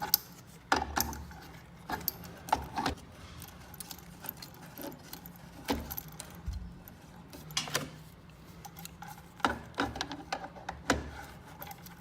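Irregular metallic clicks and knocks from hand tools and pipe fittings being handled while working on a gas water heater's control valve.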